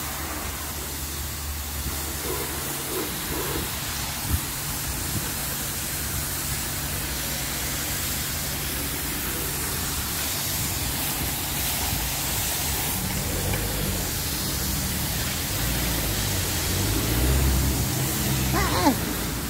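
Steady hiss of water spray from a self-service car wash's high-pressure lance, with a low pump hum in the first few seconds.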